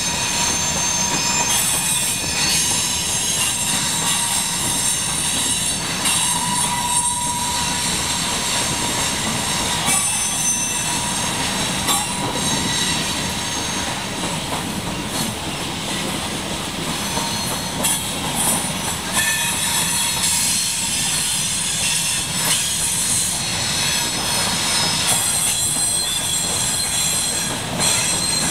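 Coal cars of a freight train rolling past: a steady rumble of steel wheels on rail, with high-pitched wheel squeal and a few sharp clanks.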